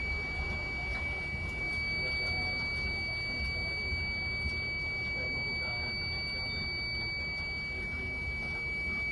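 A steady, high-pitched electronic whine that never changes, over a low rumble.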